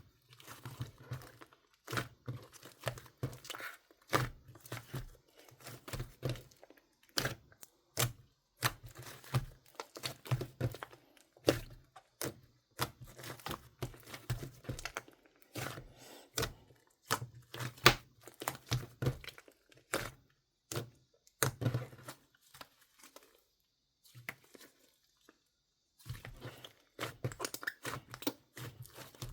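Hands playing with strawberry-smoothie slime: an irregular run of sticky clicks, pops and crackles as it is squeezed, stretched and folded, with a pause of about three seconds near the end.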